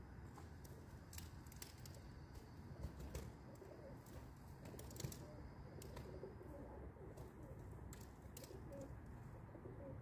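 Pigeons cooing softly, starting a few seconds in, with a few sharp clicks scattered through.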